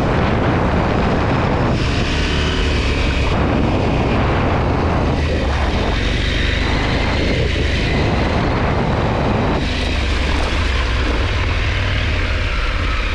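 KTM 890 Adventure R's parallel-twin engine running under way, with wind rushing over the microphone.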